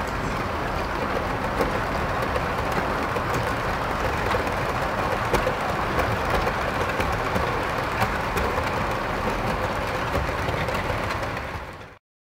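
HO scale model freight train rolling past on the track: a steady rumble of small wheels on rail with faint scattered clicks, fading out just before the end.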